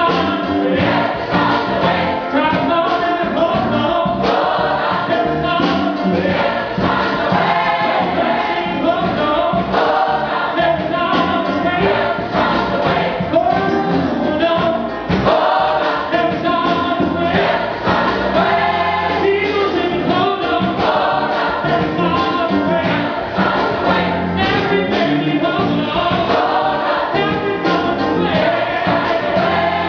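Large gospel choir singing in full harmony with instrumental accompaniment over a steady beat.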